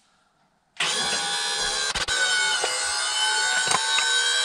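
QuickJack portable car lift's electric hydraulic pump running as it raises the car, a steady fixed-pitch motor whine. It starts about a second in and breaks off briefly about two seconds in.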